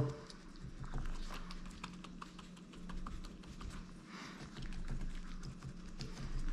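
Fingertips massaging a fluid-filled latex test patch stuck to a steel plate: soft rubbing with many small irregular clicks and taps as the solution is worked over the steel to pull up the salts. A faint steady low hum lies underneath.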